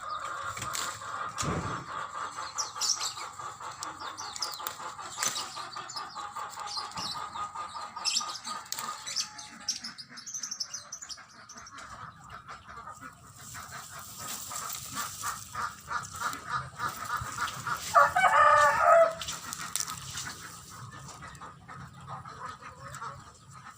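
Chickens clucking and calling continuously, with one loud call lasting about a second about eighteen seconds in.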